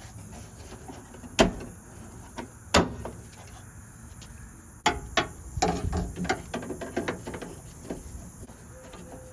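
Metal clicks and knocks from hand work on a pickup truck's door: two sharp clicks, then a burst of knocking and rattling about halfway through.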